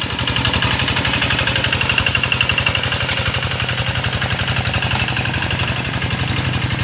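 Single-cylinder diesel engine of a walk-behind hand tractor, used for harrowing the rice paddy, running steadily with a rapid, even chugging.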